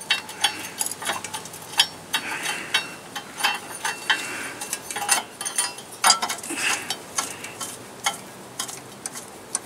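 Irregular metallic clicks and clinks of hand tools working the mounting bolts of a John Deere LA145's electric PTO clutch from underneath the mower.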